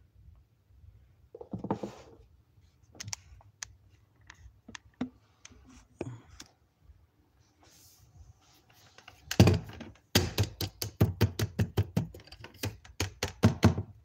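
Light scattered clicks, then from about nine seconds in a fast run of sharp taps and knocks, several a second. The grinder's motor is not running.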